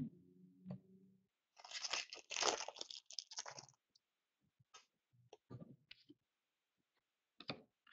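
A trading card pack's wrapper being torn open and crinkled by hand, a couple of seconds of crackling about one and a half seconds in, followed by a few light clicks as the cards are handled.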